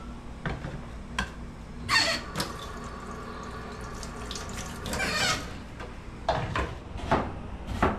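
Kitchen tap running into a sink for about three seconds, starting about two seconds in, with a few short knocks before and after it.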